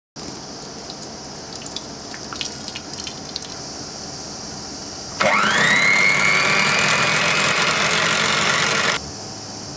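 Electric hand mixer switched on about five seconds in: its motor whine rises quickly and then holds steady as the beaters whisk egg whites in a stainless steel bowl, then stops abruptly near the end. A few light clicks come before it.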